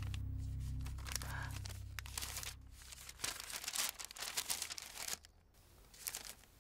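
A sheet of paper rustling and crinkling in several bursts as a folded letter is opened out and handled. A low background hum fades away over the first two seconds.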